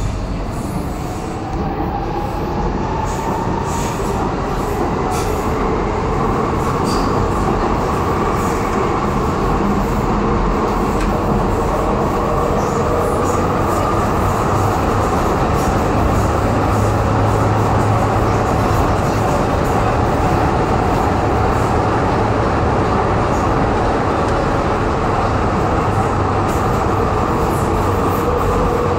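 Docklands Light Railway train accelerating away from a station and running on through a tunnel, heard from inside the carriage. The electric traction motors' whine rises in pitch over the first several seconds, then holds steady over the rumble of the wheels on the track.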